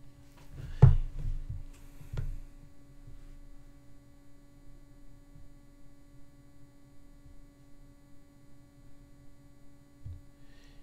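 A steady, faint electrical hum over quiet room tone, with two short sharp knocks, one about a second in and one about two seconds in.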